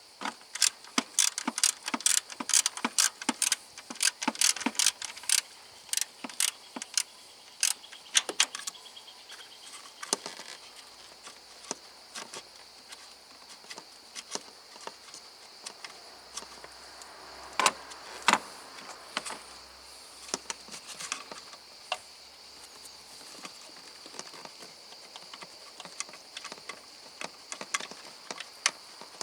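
Rapid, irregular sharp clicks and metallic taps from hand work with tools and parts on the car, thick during the first nine seconds and then scattered, with two louder knocks past the middle. A steady high insect drone runs underneath.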